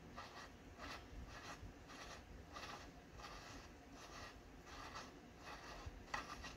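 Faint rhythmic rubbing, a soft stroke a little under twice a second, as the crankshaft of a 1961 West Bend Power Bee 820 two-stroke go-kart engine is turned back and forth by hand, with one sharper click near the end.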